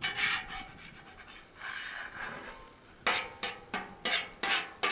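Metal spatula scraping across the seasoned steel cooktop of a Cuisinart 360 XL griddle. A longer rasping scrape comes around the middle, then a quick run of short scrapes, about three a second, in the second half.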